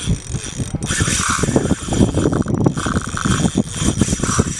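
Fishing reel ratcheting: a dense, fast run of clicks.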